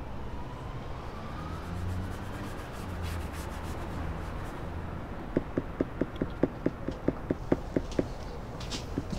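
A quick, even run of sharp knocks, about five a second, starting a little past halfway and stopping about a second before the end, over a low steady rumble.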